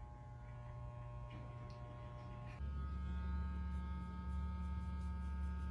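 Corded electric hair clipper running with a steady buzz as it cuts hair. About two and a half seconds in, the hum becomes louder and deeper.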